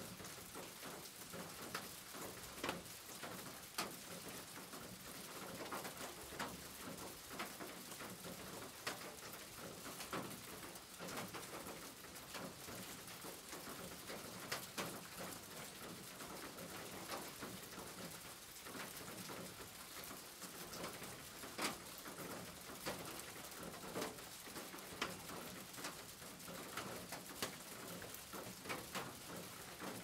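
Steady rain on a corrugated tin roof: an even hiss broken by many sharp individual drop taps on the metal, with birds calling in the background.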